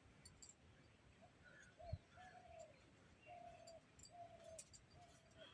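Dove cooing faintly in the background: a run of about five short, level coos starting a little over a second in.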